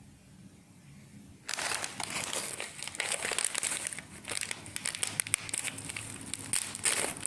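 Snack packet crinkling as it is handled, starting about a second and a half in and going on as a dense run of small crackles.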